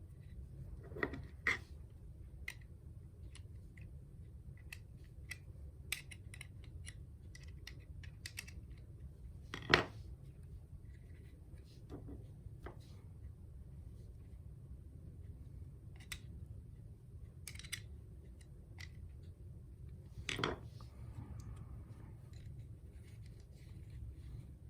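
Small sharp clicks, taps and light scratching from working on a Zippo lighter insert and its parts. The loudest click comes about ten seconds in, with a few others near the start and about twenty seconds in.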